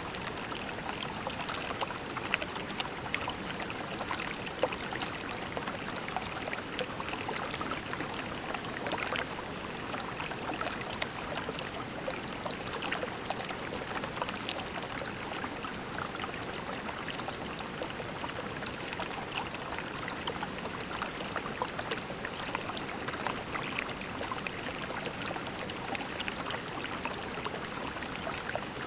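Shallow creek water flowing and trickling over pebbles: a steady babbling rush with many small splashes and drips.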